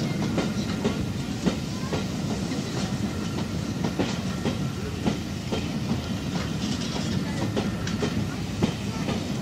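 Double-headed steam train pulling out, BR Standard 4MT 2-6-4T and Ivatt 4MT 2-6-0 locomotives with their coaches: a steady low rumble with irregular clanks and clicks from the moving train.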